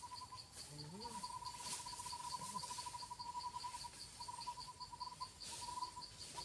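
Insects trilling: a steady rapid trill joined by a higher, even chirp repeating about five times a second.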